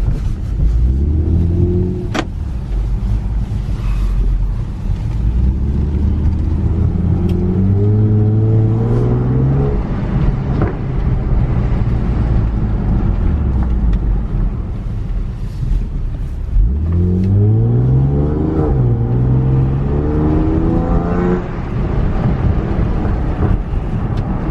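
Honda Accord engine with a pops-and-burbles tune pulling through the gears while driving, its revs climbing several times over steady road and wind noise. The engine is heard through the open windows, with a sharp crack about two seconds in.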